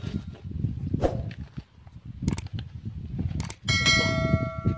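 Rustling and two sharp clicks, then a metal object clinks and rings for about a second and a half.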